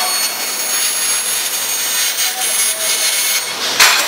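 Laser pipe cutting machine cutting structural steel: a steady hiss from the cutting head, with thin high whines that stop a little over three seconds in. Near the end there is a short, loud burst.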